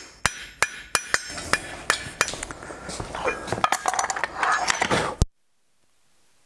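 Hand hammer striking hot steel bar stock on an anvil, rounding and touching up a disc: a run of sharp ringing blows, about three a second at first, then quicker and lighter. The blows cut off abruptly about five seconds in.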